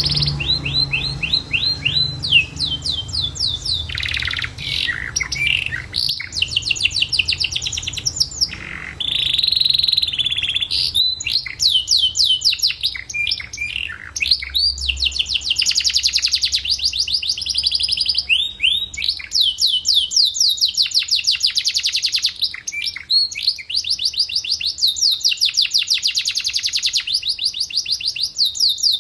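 Domestic canary singing vigorously in long rolling trills: fast runs of high repeated notes, changing from one trill to the next, broken by a few brief pauses.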